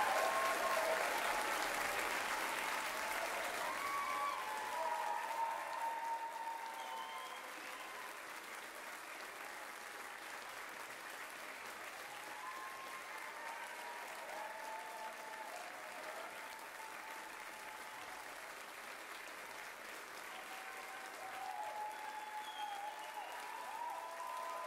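Large audience applauding, with scattered voices and cheers mixed in. The clapping is loudest at first and eases off to a steadier, quieter level after several seconds.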